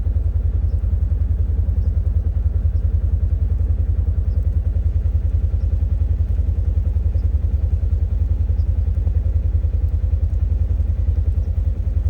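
A vehicle engine running steadily at an even speed, a deep rumble with a rapid, regular pulse.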